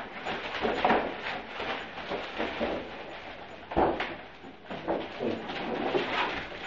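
Rustling and crinkling of gift wrapping and a cloth sack as presents are handled, with one sharp knock about four seconds in.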